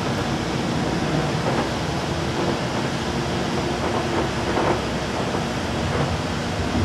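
Ride noise inside a moving light rail car: a steady rumble of the wheels on the track, with a faint whine partway through.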